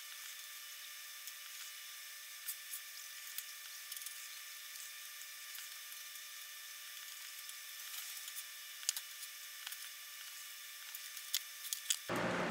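A small chisel working the fine tabs of panels out of a thin aluminium sheet-metal skin: a few faint, scattered ticks and clicks over a steady hiss. A louder sound starts right at the end.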